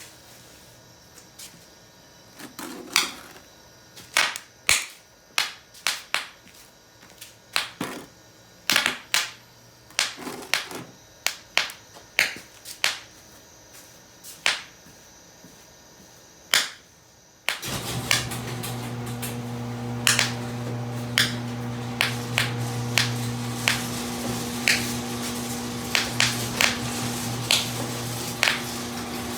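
Homemade 'bucket of bangs' firecracker substitute going off in a string of sharp pops, irregular and about one a second. About two-thirds of the way in a steady low hum starts underneath, and the pops then come faster.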